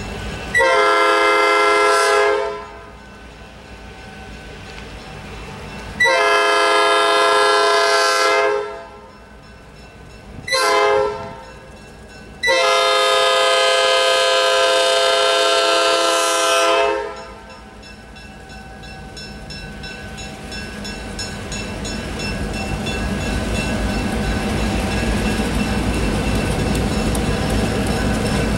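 Diesel locomotive's multi-note air horn blowing the grade-crossing signal, long, long, short, long, with the last blast held about four seconds. Then the low rumble of the Maryland Midland GP38-3 diesel locomotives and their train grows steadily louder as they approach.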